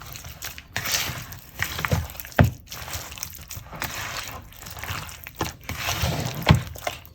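Chicken being mixed into a thick yogurt-and-spice marinade in a bowl: irregular wet stirring sounds, with a couple of sharper knocks.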